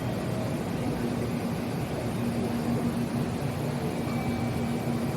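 Train at a station platform: a steady low rumble with a faint even hum, no single event standing out.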